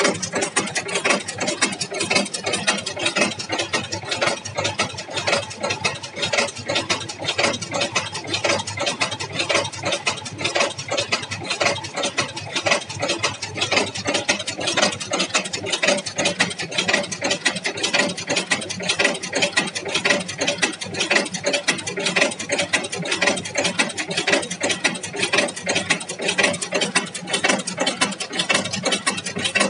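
Automatic chain-making machine running continuously, its mechanism clattering in a fast, steady rhythm of sharp clicks as it forms chain links from wire.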